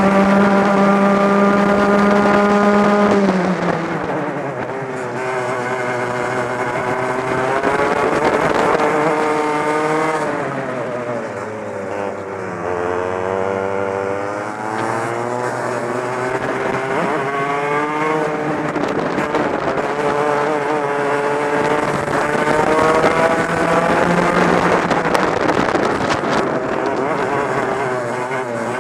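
Two-stroke racing kart engine at racing speed, heard onboard. Its pitch holds high, drops sharply about three seconds in as the kart slows for a corner, then climbs and falls in long sweeps several more times as it accelerates out of corners and lifts for the next.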